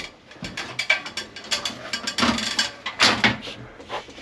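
Irregular clicks, knocks and rattles from an aluminium articulating ladder being climbed and a ceiling attic-access panel being pushed up out of its frame.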